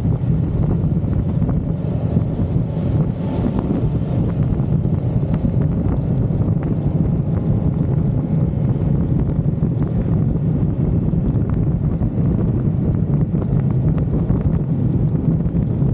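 Wind rushing over the camera's microphone on a moving motorcycle, with the bike's engine running underneath as a steady low drone.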